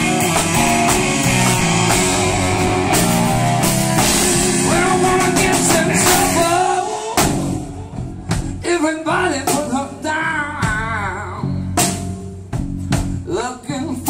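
Live blues-rock band: loud electric guitar and drums for about seven seconds, then the band drops back suddenly and a man sings with a wide vibrato over sparse drum hits and guitar.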